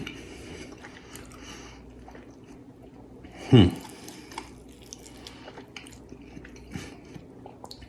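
Quiet eating sounds: soft chewing and small mouth and handling noises. About three and a half seconds in, a man gives one short appreciative 'mmm' that falls in pitch.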